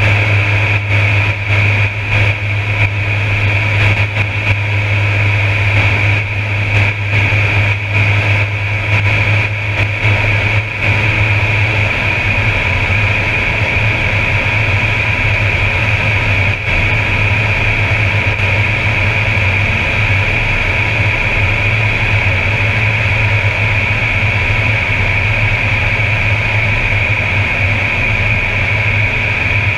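Air Tractor 402B's turboprop engine and propeller in steady cruise, heard from inside the cockpit: a loud low drone with a steady high whine above it. The sound flutters and dips briefly several times in the first ten seconds or so, then runs evenly.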